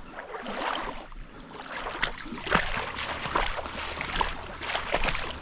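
Someone wading through shallow creek water: irregular splashing and sloshing steps over the running water.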